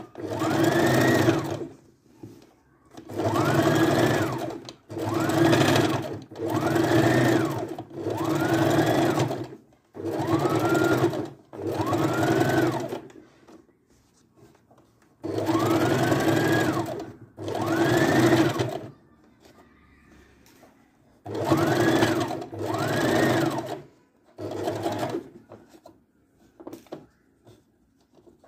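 Electric home sewing machine sewing a straight-stitch seam in about a dozen short runs of a second or so, with brief pauses between them. The motor whine climbs in pitch as each run gets going.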